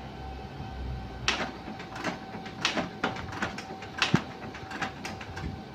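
Canon LBP6000 laser printer running a test print: a steady motor hum with a series of sharp mechanical clicks and clunks, the loudest about four seconds in. The pickup roller is failing to draw the paper in.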